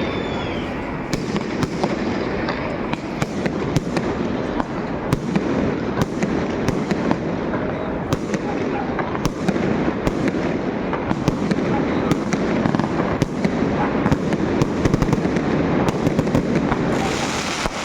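Fireworks and firecrackers going off in a dense, continuous crackle, with many sharp bangs throughout.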